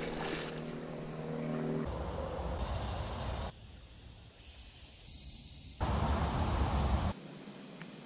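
Outdoor swamp ambience that changes abruptly several times: wind rumbling on the microphone and a high, steady insect drone, with a steady low hum of several tones in the first two seconds.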